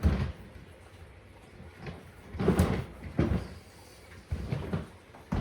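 Several knocks and clunks from a pulled-out dishwasher being handled: a sharp one at the start, a cluster about halfway through, and a couple of lighter ones near the end.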